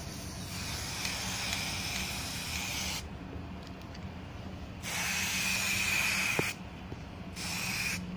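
Aerosol can of black spray paint hissing in three bursts with short pauses between, the middle burst the loudest.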